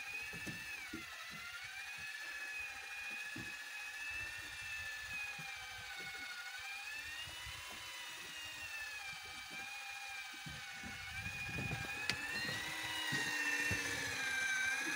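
Daiwa Tanacom 1000 electric fishing reel's motor whining as it winds in line with a hooked fish on, its pitch slowly rising and falling as the load changes.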